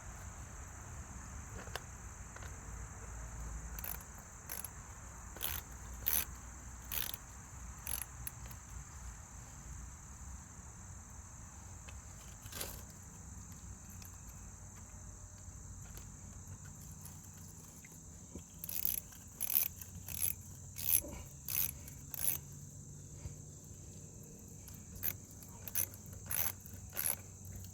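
Steady high-pitched insect chorus of crickets, with scattered sharp clicks over it, a few at a time early on and a denser run of them from about two-thirds of the way through.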